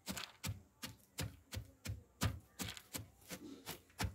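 Stone pestle (lodha) pounding roasted nut kernels in a bamboo winnowing tray: short, even knocks at about three strokes a second, breaking the nuts into small pieces.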